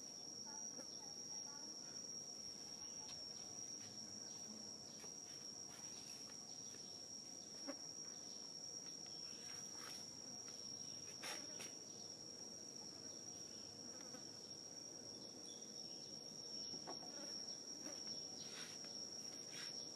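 Insects droning outdoors: a steady, faint, high-pitched whine, with a few brief scratchy rustles scattered through it.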